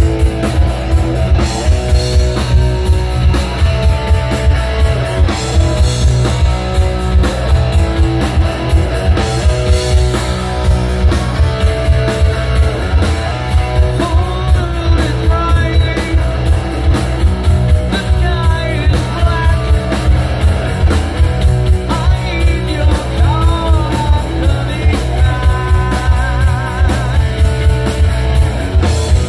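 Live rock band with electric guitars and a drum kit, playing with a steady beat. In the second half a lead line comes forward, with bent notes and a wavering vibrato.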